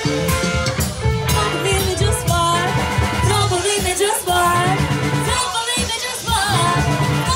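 Live band playing a song through a PA: a voice singing over electric guitar, bass guitar and a drum kit.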